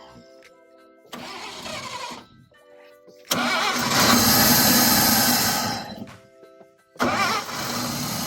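The 1954 Chevy Bel Air's straight-six being cranked over by the starter in three tries, the second the longest and loudest, trying to catch but not running: it is short of fuel. Faint background music sits under it.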